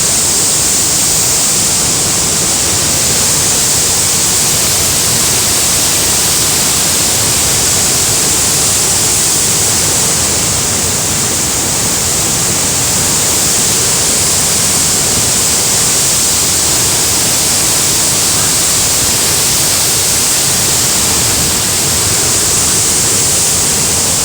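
Loud, steady rush of water, a dense hiss with no pauses, typical of floodwater pouring through streets and down steps.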